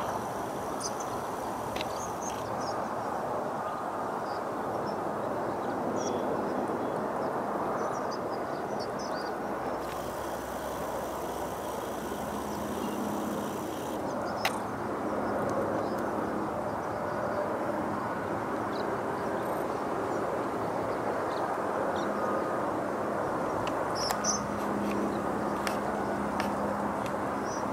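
Steady outdoor background noise with scattered short, high bird chirps over it.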